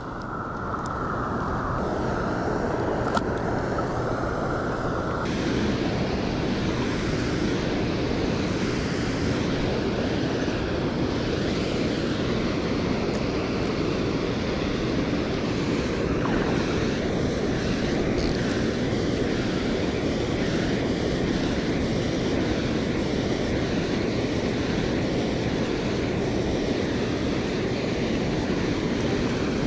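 Steady roar of rushing water from the dam's outflow, an even rushing noise that grows brighter and hissier about five seconds in.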